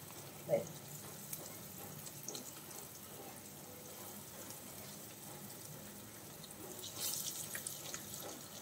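Masala-coated eggs shallow-frying in hot oil: a faint, steady sizzle with scattered small pops, growing louder near the end.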